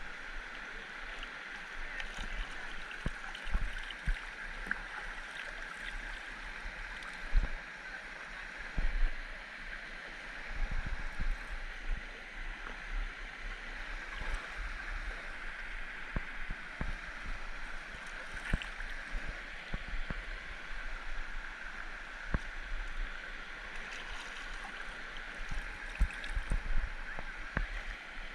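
Steady rush of a stream's running water, with scattered short low knocks and bumps.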